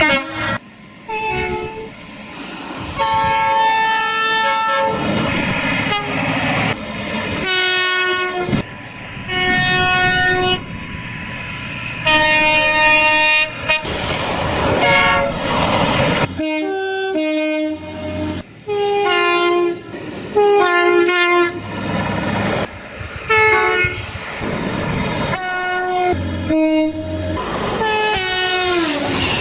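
A rapid string of train horn soundings, many of them two-tone horns stepping between a high and a low note, each starting and stopping abruptly, over the rumble and clatter of trains on the rails. Near the end one horn falls in pitch as it sounds.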